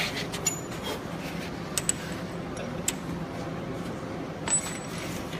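Loose metal bolts clinking against each other and against metal as they are handled and sorted, a handful of separate sharp ringing clicks over a steady low hum.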